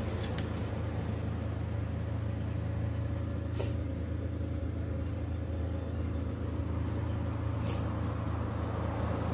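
VW up! 1.0 three-cylinder engine idling steadily, a low even hum heard from inside the cabin. Two short clicks come about a third of the way in and again near the end.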